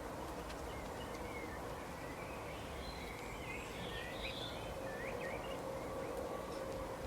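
Small birds chirping in short, scattered calls, busiest about three to five seconds in, over a steady background hiss and a faint steady hum.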